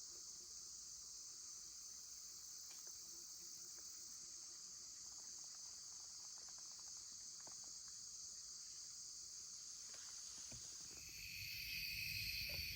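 Faint evening insect chorus, a steady high-pitched trill. About eleven seconds in, a second, louder insect buzz joins, along with some low rumbling.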